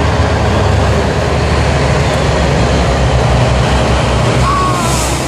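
Tatra 815 off-road truck's diesel engine running steadily under load as the truck crawls through deep mud, with a deep low rumble. A short high gliding tone sounds near the end.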